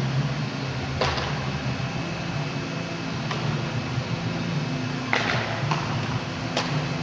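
Steady low hum of an indoor training hall's ventilation, with a few sharp knocks of a baseball, the loudest about five seconds in.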